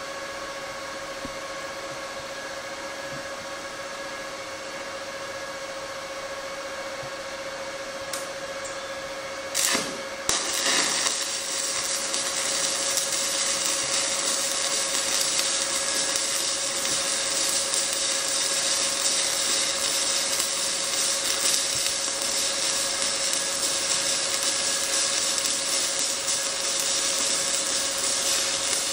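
Stick welding with 7018 electrode at 120 amps on a Lincoln Sprinter 180Si inverter. A steady background tone runs for the first ten seconds or so. Then the arc strikes with a brief sharp burst and settles into a loud, steady crackling sizzle, a consistent arc.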